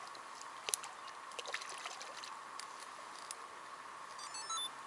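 Faint light splashing and trickling of water from a hooked roach being played at the surface on a long float rod, with scattered small ticks. A few short, high, stepped chirps come near the end.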